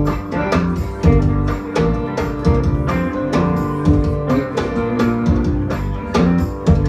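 Live Tuareg desert-blues (assouf) band playing: interlocking electric guitar lines over a bass line and a steady hand-drum beat.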